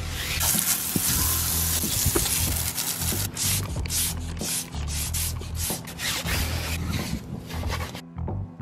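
Water jet spraying onto a soapy car wheel, a steady hiss with brush scrubbing strokes through it. The hiss cuts off suddenly near the end, leaving only short scrubbing strokes. Background music with a bass beat plays underneath.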